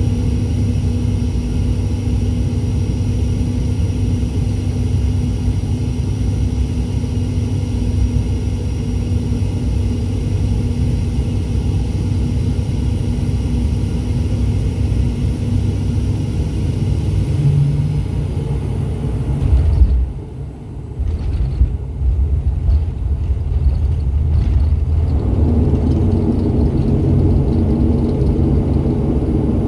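An ATR 72-600's Pratt & Whitney PW127 turboprops and propellers drone steadily, heard from the cabin on short final. About twenty seconds in a sudden thump marks touchdown. A few seconds later the propeller noise rises again as the aircraft rolls down the runway.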